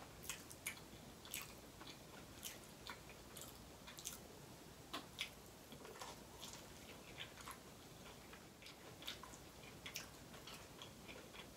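Eating sounds: irregular soft clicks and small crunches of chewing and biting, with bites into corn on the cob.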